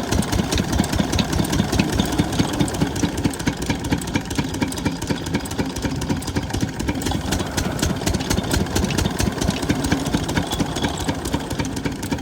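Single-cylinder diesel engine of a 12 hp water-pump set running steadily, with an even, fast firing beat.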